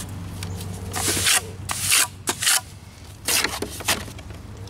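Trowel scraping and scooping wet rapid-set patching cement in a plastic mixing tub: several short gritty scrapes.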